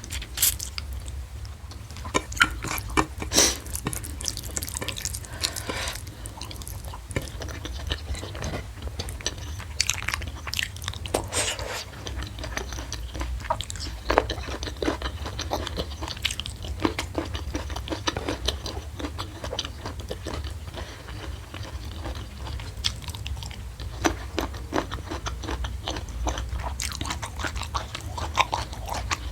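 Close-miked chewing and biting of food, with irregular crisp crunches and wet mouth sounds, the loudest crunches about three seconds in. A steady low hum runs underneath.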